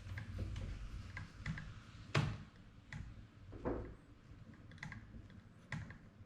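Creaking from a road bike's handlebar area: a series of irregular sharp creaks and clicks, the loudest about two seconds in.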